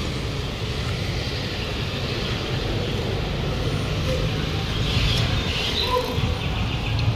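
Street traffic noise: a steady low engine hum from vehicles and motorbikes.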